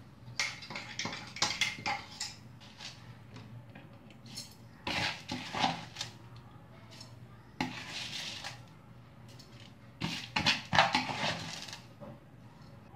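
Stainless-steel mixer-grinder jar and kitchen utensils clattering and scraping in irregular bursts, as batter is scraped out of the jar and soaked rice is tipped from a plastic bowl into the steel jar.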